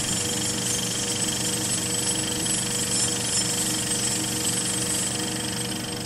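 Synthesized sound effect for an animated logo intro: a dense, steady electronic drone of many held tones with a fast buzzing pulse low down, starting to fade near the end.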